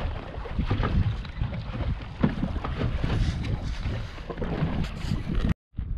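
Wind buffeting the microphone on a small boat on open water: a rough, rumbling rush of noise with scattered knocks.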